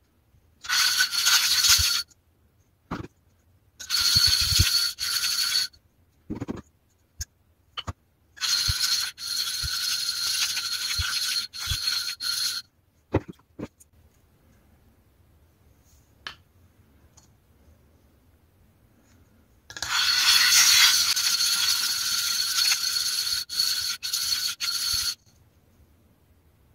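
Fine-grit Apex-format sharpening stone being lapped flat on a granite plate in a slurry of 50-micron boron carbide powder: four stretches of gritty scraping, the longest near the end, with short clicks and knocks of the stone between them.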